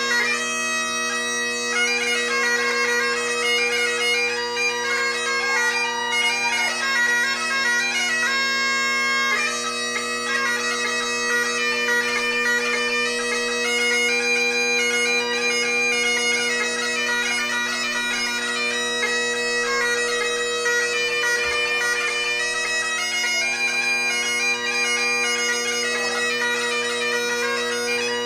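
Solo Great Highland bagpipe playing a tune: the drones hold a steady low chord while the chanter carries a shifting melody above them, with no break.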